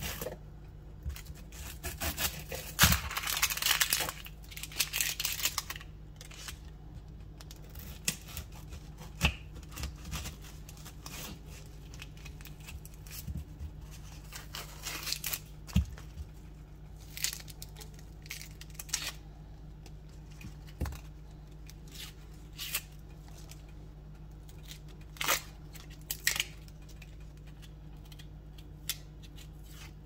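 Dry, papery skin being peeled and torn off a yellow onion, crackling in bursts that are densest a few seconds in and again around the middle. A knife gives short sharp taps on a wooden cutting board now and then, over a steady low hum.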